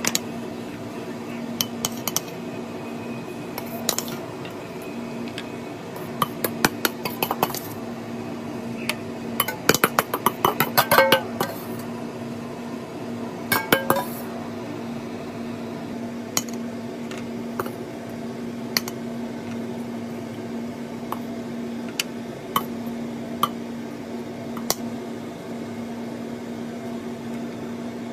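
Cutlery and dishes clinking in scattered light taps on ceramic, with a quick run of clinks about ten to eleven seconds in and another near fourteen seconds, over a steady low hum.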